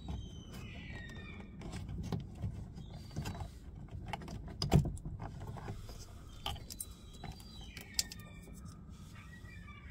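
Metal parts and hand tools clicking and knocking, with short squeaks, as a car door's window regulator is worked on. One sharp knock stands out just under five seconds in.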